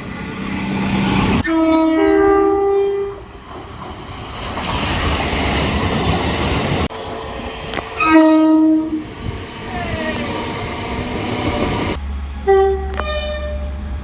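Train horns sounding in several short clips: a two-tone blast, a lower note followed by a higher one, about a second and a half in, then the noise of a passing train, a single short horn blast about eight seconds in, and a brief toot near the end.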